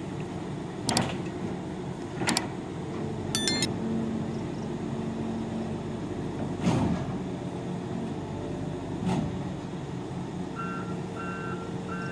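Diesel engine of a Volvo EC210 long-reach excavator running steadily while it loads onto a low-bed trailer, with a handful of sharp knocks and clanks. Near the end its travel alarm starts beeping, about one and a half beeps a second, as the machine tracks.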